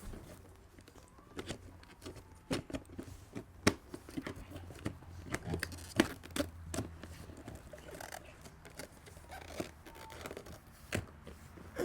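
Irregular plastic clicks, taps and rustling from handling a car's power window switch and its wiring connectors as they are plugged in, with the sharpest click about six seconds in.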